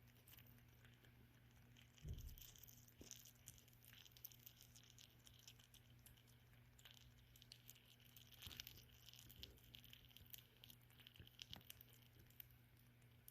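Rabbit chewing banana: faint, irregular little clicks and smacks, over a steady low hum.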